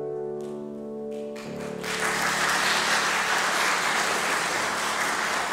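Grand piano's closing chords sustaining, with a final chord struck about one and a half seconds in. Audience applause breaks out about two seconds in and carries on.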